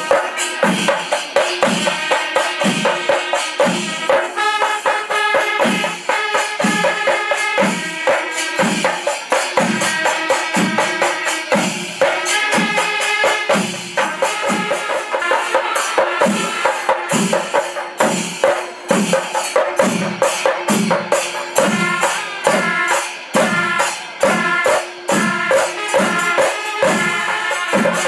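Panchari melam, the Kerala temple percussion ensemble: chenda drums beating a steady rhythm of low strokes about once a second, under continuous clashing of ilathalam cymbals.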